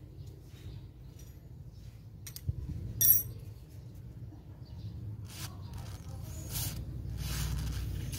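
Aerosol lubricant spray hissing through its red straw onto the ball bearing of a handheld wood cutter's motor armature, in three short spurts from about five seconds in, the last one longest. A single sharp clink about three seconds in is the loudest sound.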